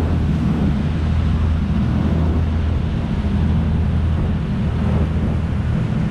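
Tour boat's engines running steadily at cruising speed, a constant low drone, with wind buffeting the microphone and the rush of the churning wake.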